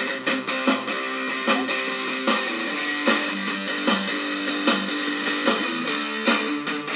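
Cort X6 electric guitar played through a Zoom G1Xon multi-effects pedal, sustained notes with a strong picked or strummed accent about every 0.8 s.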